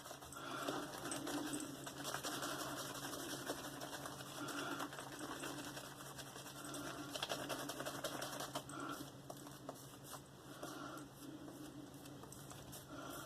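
Synthetic shaving brush (Timberwolf 22 mm knot) being swirled over a puck of Mitchell's Wool Fat soap to load it: a faint, quick scratchy patter that swells and fades irregularly.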